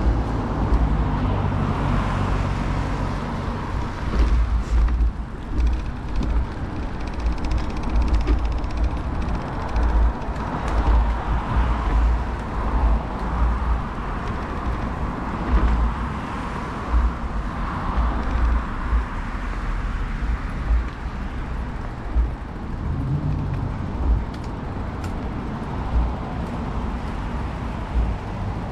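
Wind buffeting the microphone of a bicycle-mounted action camera while riding, in irregular low rumbling gusts, with cars passing on the road alongside and swelling and fading several times.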